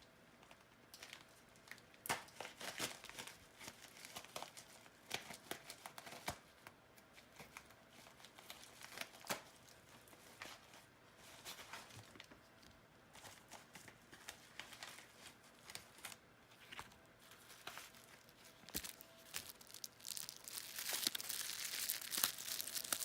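A shipping package being opened by hand: packaging tearing and packing material crinkling, in a string of short rips and crackles that thicken into steadier rustling near the end.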